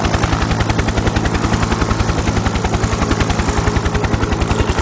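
A loud, rapid, even mechanical pulsing of about fourteen beats a second over a steady low hum.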